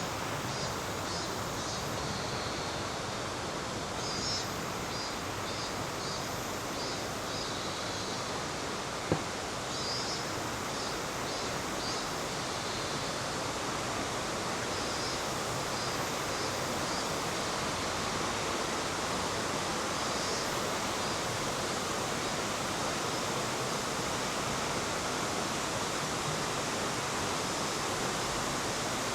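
Steady rush of a mountain river's flowing water. Short bursts of rapid, high-pitched chirping come every few seconds, and a single sharp tap sounds about nine seconds in.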